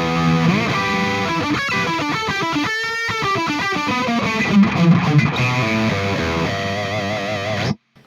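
Distorted lead electric guitar played through an Axe-FX II modeller set to the Solo 99 lead amp model and a 4x12 German V30 cabinet, sounding held notes with string bends and vibrato. It cuts off abruptly near the end.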